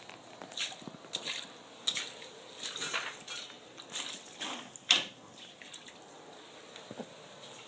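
Wet squishing and dripping of water in quick, uneven bursts, the loudest about five seconds in, then quieter.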